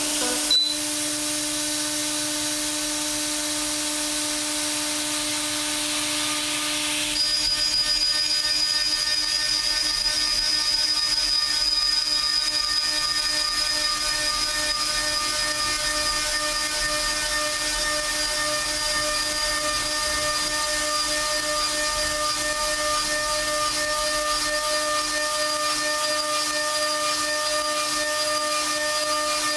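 DMG Mori DMU 50 five-axis mill spindle spinning a Kennametal Harvi III carbide end mill, with a short knock about half a second in. About seven seconds in the cutter bites into 1018 steel at 1000 inches per minute: a steady, high-pitched multi-tone cutting whine over a hiss of flying chips, held through the rest.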